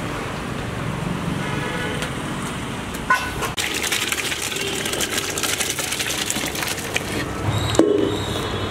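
Thick chicken curry being poured from a steel pot into another steel vessel: a metal knock, then a dense wet crackling pour that lasts a few seconds and ends with another knock. Busy background noise with voices runs underneath.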